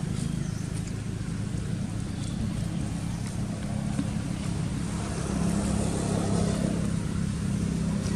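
Vehicle engine idling, a steady low hum that swells slightly about five seconds in.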